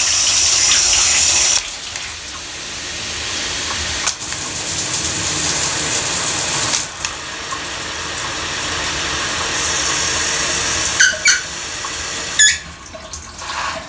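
Water spraying from a Delta In2ition shower head onto tile, a steady hiss that changes abruptly several times as the spray mode is switched between patterns. A single click about four seconds in, and near the end the spray becomes much quieter.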